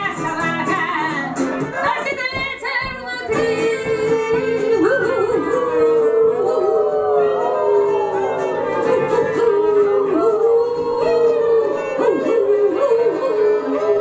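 Live acoustic song: wordless singing, the notes sliding up and down with yodel-like breaks, over strummed acoustic guitar.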